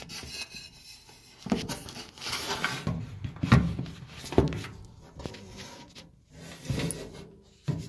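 Uneven knocking, bumping and scraping from parts of a dryer being handled, with several louder thuds.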